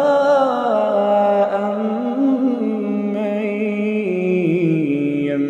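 Quran recitation: a single voice chanting in long, slowly gliding held notes, stretching the vowels melodically between words, with a step down in pitch about four seconds in.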